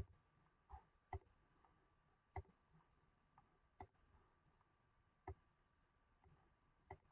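Computer mouse button clicking: about seven single, sharp clicks spaced roughly a second or more apart, faint against near silence.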